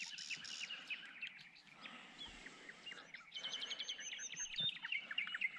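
Birds singing and chirping, with a quick run of high, repeated notes about three and a half seconds in. A soft knock or two underneath.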